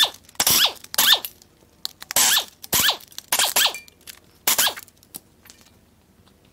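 Air-powered wrench spinning exhaust manifold nuts off the studs of a Mazda 2.3L MZR turbo cylinder head, in about six short trigger bursts, each ending in a falling whine. The bursts stop about five seconds in.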